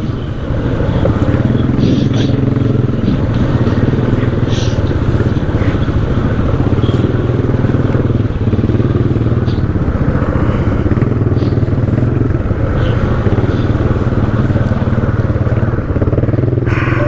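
ATV engine running steadily at close range, its note wavering slightly, with a few short knocks and clatters over it.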